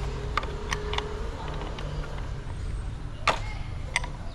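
Scattered sharp clicks and taps of hand tools, screws and plastic panel parts being handled while dismantling a motorcycle's headset, the loudest a little past three seconds in, over a steady low hum.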